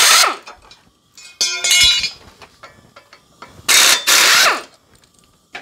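Pneumatic air ratchet run in two bursts of about a second each, each winding down with a falling whine. Between them comes a shorter rattle of metal with a ringing clink.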